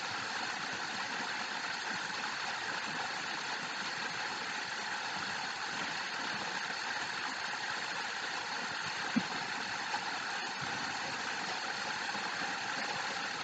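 Steady, even background noise with a machine-like hum and hiss, and a faint click about nine seconds in.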